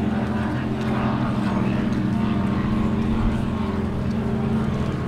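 Racing powerboat engines droning steadily, a loud, even hum with several low tones held together.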